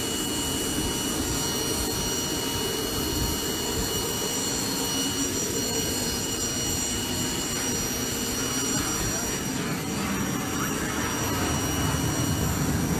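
Military helicopter's turbine engines running on the ground: a steady high-pitched whine over a low rumble, growing a little louder near the end.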